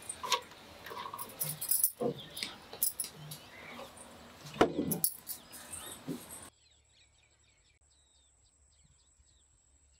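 Wooden cabinet door being opened and a glass jar taken out, a run of clicks, knocks and light rattles. About six and a half seconds in this stops abruptly, leaving near silence with faint high chirps.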